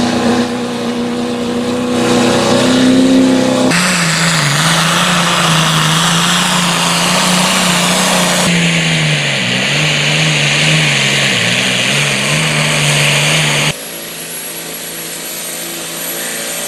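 Diesel engines of pickup trucks and a pulling tractor running hard under load as they drag a weight-transfer sled, in short clips that cut abruptly from one to the next. The engine pitch dips and recovers several times as the engines lug against the sled.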